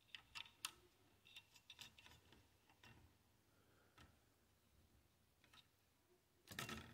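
Faint, scattered clicks and ticks of small metal mounting hardware being handled and turned by hand on a CPU cooler's mounting posts around a motherboard socket, with a denser run of clicks near the end.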